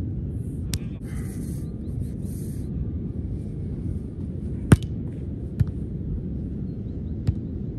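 A volleyball being hit: four sharp smacks over a steady low rumble, the loudest a little over halfway through.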